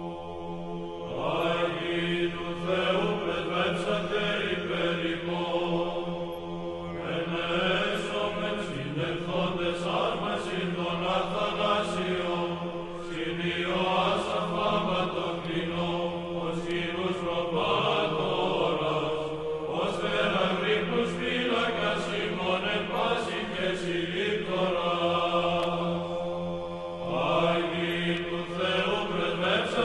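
Chanted singing: voices sing slow melodic phrases, each several seconds long, over a steady held drone note.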